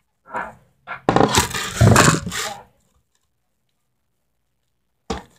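A board being handled and scraped across a tabletop: rustling and scraping for the first couple of seconds, then dead silence, then one short knock about five seconds in.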